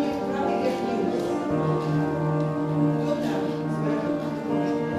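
Music with long held chords that change every second or so.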